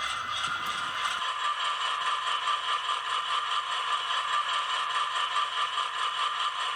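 HO scale GE Dash 9 model diesel locomotives running on layout track, their DCC sound decoders playing diesel engine sound through small onboard speakers, thin with almost no bass, over a steady clatter of wheels on the rails.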